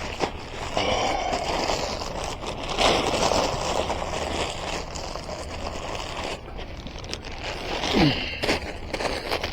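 Handling noise of a bag and gear being packed: rustling, scraping and a few knocks, with a short falling creak about eight seconds in.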